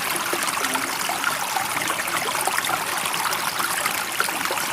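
Running water: a steady rush with fine trickling and splashing detail, even in level throughout, with no rise and fall of breaking waves.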